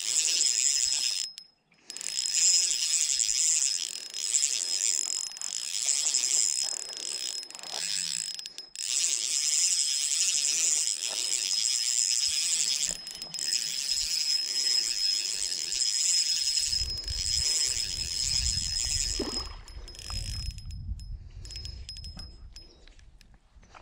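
Shimano 1000-series spinning reel being cranked: a steady geared whir with a thin high whine, broken off by a few short pauses. About two-thirds of the way through, a low rumble joins it.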